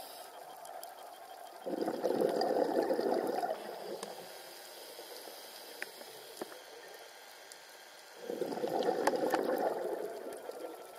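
Scuba diver's regulator exhaust bubbles: two long exhalations about six seconds apart, bubbling noise with quieter stretches of water background and a few faint clicks between.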